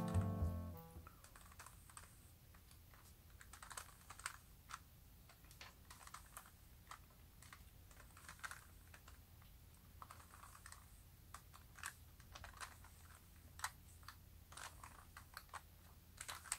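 3x3 Rubik's cube being turned by hand through a solving algorithm: faint, irregular plastic clicks and clacks as the layers rotate and snap into place. A tail of music fades out in the first second.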